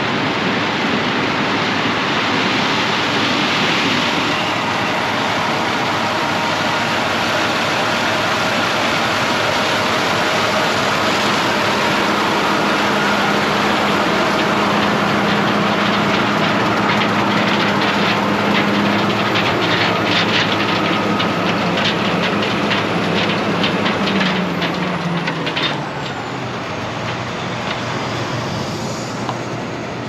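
John Deere 9770 STS combine harvesting corn, passing close by: a steady mechanical drone with a busy rattle while it is nearest. Its engine pitch drops past the three-quarter mark as it goes by, and it is a little quieter as it pulls away.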